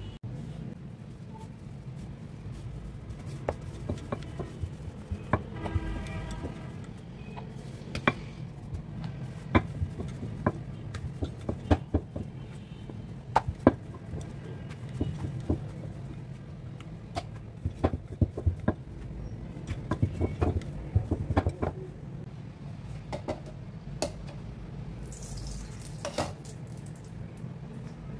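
Irregular sharp knocks and clacks of a rolling pin on a round stone rolling board as flatbread dough is rolled out, over a steady low hum.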